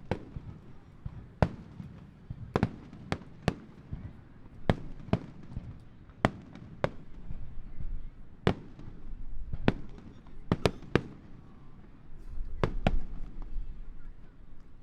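Aerial firework shells bursting: about fifteen sharp bangs at irregular intervals, each ringing out briefly, over a low rumble that swells near the end.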